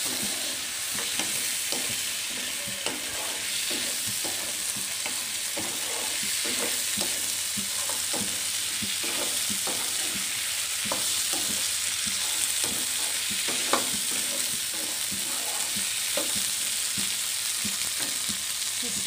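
Chicken pieces and shallots sizzling in butter in a non-stick wok, with a wooden spatula stirring, scraping and tapping the pan over and over and one sharper knock about two-thirds of the way through. The sauce is cooking down until almost dry.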